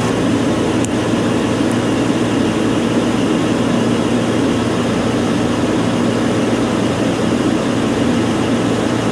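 Steady drone of neighbouring refrigeration condensing units running: compressors humming and condenser fans blowing, a broad rushing noise over a steady low hum.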